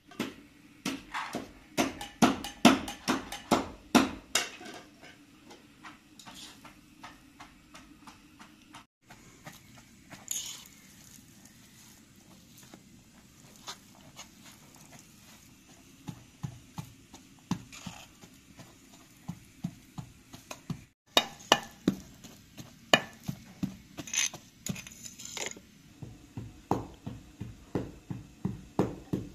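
Kitchen food-preparation sounds: runs of quick, sharp knocks and clicks of utensils and dishes, dense at the start and again in the second half, with a quieter stretch between.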